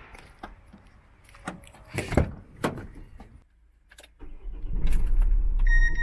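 A few clicks and knocks, then a delivery van's engine starts about four seconds in and runs on with a steady low rumble. A short electronic beep sounds near the end.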